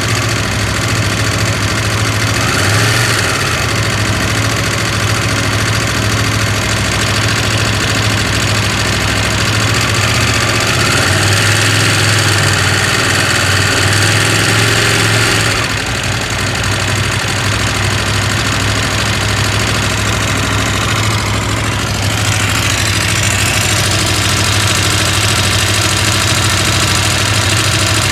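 KTM 890 Adventure R parallel-twin engine running at idle with a rattle that the owner is unsure is normal. The revs rise briefly twice, once about three seconds in and for a few seconds around the middle.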